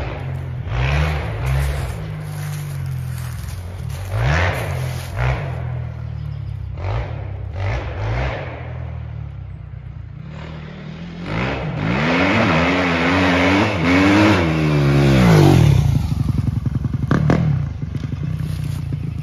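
2006 Honda CRF250R dirt bike's single-cylinder four-stroke engine being ridden on a woodland trail, revving up and easing off in short repeated bursts. About two thirds of the way through it revs harder and is at its loudest as it comes close, then drops back as it rides away.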